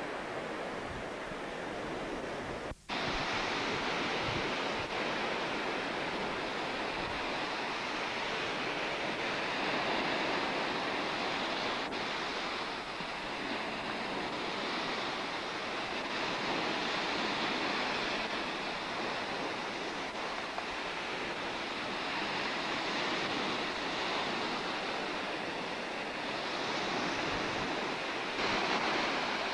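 Steady sea surf mixed with wind noise on the microphone, swelling and easing gently. There is a brief dropout about three seconds in.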